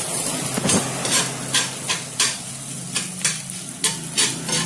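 Chopped sisig frying and sizzling in a pan while a spoon stirs and scrapes it, about two scrapes a second.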